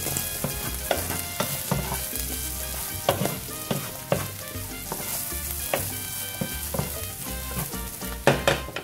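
Ground beef and chopped red onion sizzling in a nonstick frying pan while a wooden spatula stirs them, with irregular scrapes and knocks of the spatula against the pan.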